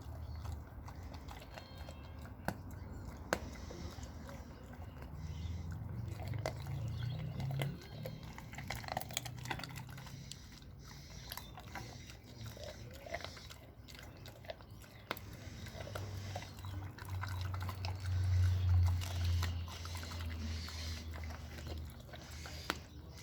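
American bulldog chewing and crunching raw meat, with wet mouth sounds and many sharp crunches. A low rumbling sound swells twice along with it.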